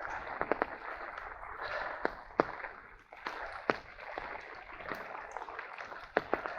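Steady hiss of light rain falling, with scattered sharp, irregular taps close by.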